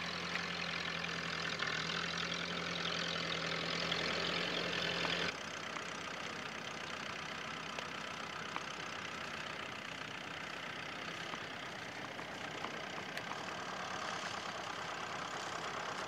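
Old Ferguson tractor engines running steadily while pulling ploughs. About five seconds in, the sound cuts abruptly from one tractor to another, and a steady low hum drops out.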